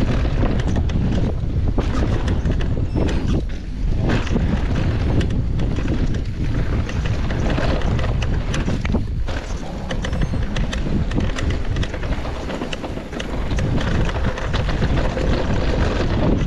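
Wind buffeting the camera microphone over the rolling noise of a Rocky Mountain Altitude Powerplay electric mountain bike descending a dirt singletrack, with frequent clicks and rattles as the tyres and bike go over stones and bumps.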